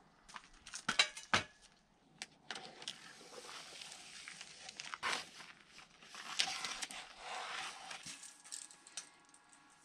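Two sharp knocks about a second in, then a long stretch of crinkling, tearing plastic wrap as a pack of unfinished tongue-and-groove pine boards is unwrapped and handled.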